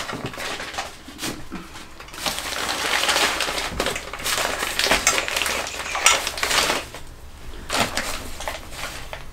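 Packing material crinkling and rustling while a stack of ceramic plates is wrapped and set into a cardboard box, with a few sharp clinks of plate against plate.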